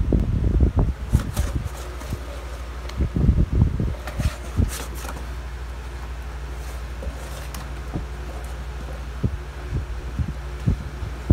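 Steady low motor hum, like a room fan, with scattered soft knocks and rustles, busiest in the first two seconds.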